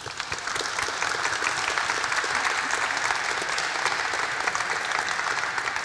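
An audience applauding, the clapping breaking out all at once and holding steady.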